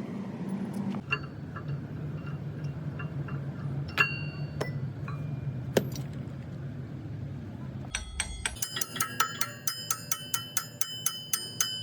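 Metal striking metal in a workshop: occasional ringing clinks of tools over a low steady hum. About two-thirds of the way through, this gives way to a fast, even run of ringing metallic taps, about four a second, like hammering on steel.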